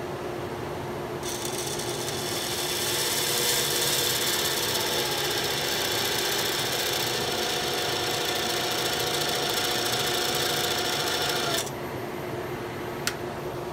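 Handheld texturing tool's toothed cutter wheel pressed against milk-painted black walnut spinning on the lathe: a loud, high whirring buzz made of many steady tones. It starts about a second in and cuts off suddenly near the end. A steady lathe hum runs underneath, and a single click comes just after the whir stops.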